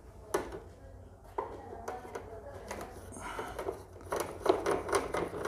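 Light clicks and knocks of a screwdriver working against the plastic casing of a split air conditioner's indoor unit as its casing screws are undone, with a quick run of small clicks about four seconds in.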